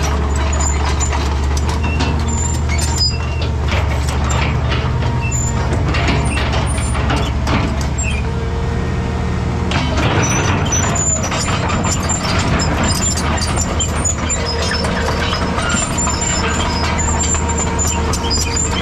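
Excavator's diesel engine running steadily, with frequent short knocks and clanks from the working machine.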